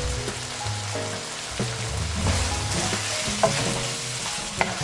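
Chicken and bell pepper strips sizzling in a wok as tomato pasta sauce is stirred in with a wooden spoon. The sizzle swells about two seconds in, and the spoon clicks against the pan a few times near the end.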